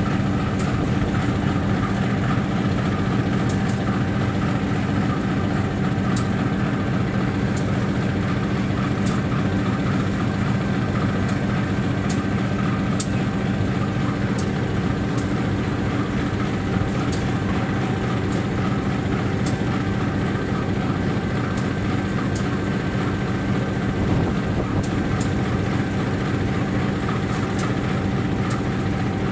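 Diesel locomotive idling while standing still: a steady engine drone with a constant hum that does not change in pitch or loudness.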